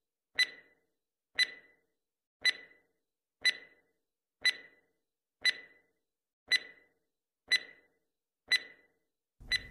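Countdown timer sound effect: a clock-like tick once a second, each a sharp click with a brief ringing tone, nine ticks in all.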